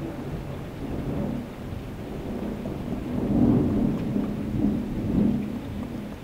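Thunder rumbling, swelling about three and a half seconds in and again about five seconds in, with steady rain falling.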